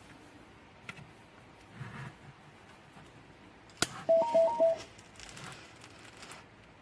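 A click, then a quick run of short electronic beeps at two pitches from a bedside alarm-clock lamp, the kind of confirmation beeps it gives when its buttons are pressed.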